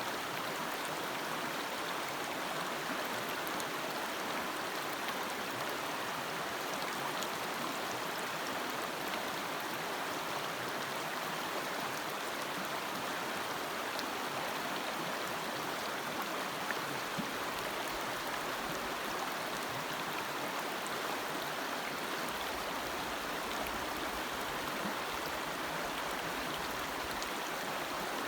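Forest stream flowing over rocks: a steady rushing babble of water with small splashes.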